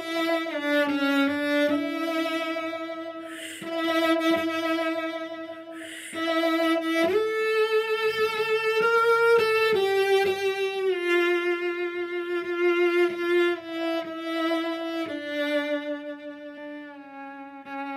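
Solo cello playing a slow, lyrical melody in long bowed notes with a wide vibrato, high in its range.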